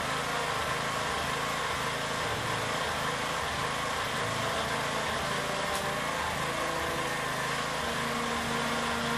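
Small 100 V, 0.3 kW submersible pump's electric motor running dry out of water with its casing opened, a steady mechanical running noise with a whine and a fluttering low rumble. The owner suspects damaged bearings, as the shaft had become hard to turn.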